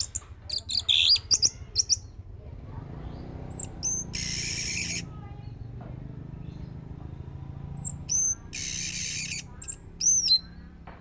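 Orange-headed thrush singing: quick chirps, then high whistled notes each run into a harsh, buzzy phrase about a second long, twice, with a last rising-and-falling whistle near the end.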